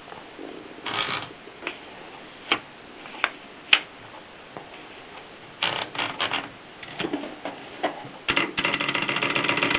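Rheinmetall typewriter keys striking in irregular keystrokes, some single and some in quick runs, then about a second of dense rapid clatter near the end.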